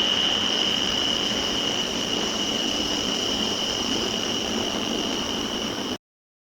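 Steady hiss of AI-generated doorbell-camera background noise, with a high, steady whine over it; it cuts off suddenly near the end.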